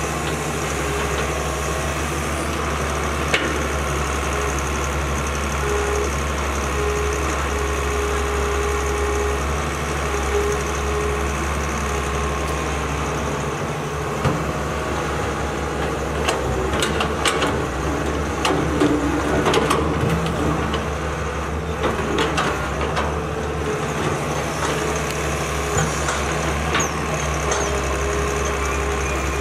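Caterpillar 320 hydraulic excavator's diesel engine running steadily while the bucket digs into soil. A cluster of sharp knocks and clanks comes in the second half, from the bucket and arm working.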